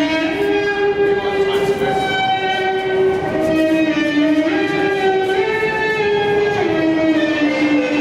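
Background music: a melody of held notes that step up and down in pitch at a steady loudness.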